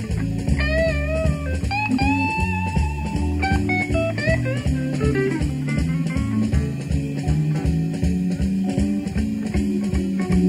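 Live blues-rock band recording: a lead electric guitar plays bending, gliding notes over a steady beat of drums and bass.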